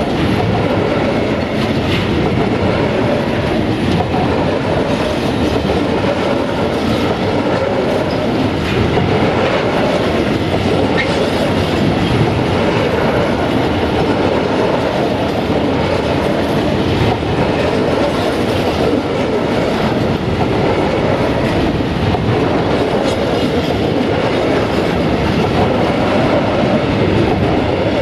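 Freight wagons, covered sliding-wall cars, rolling past close by: a steady, loud rumble with the wheels clattering on the rails.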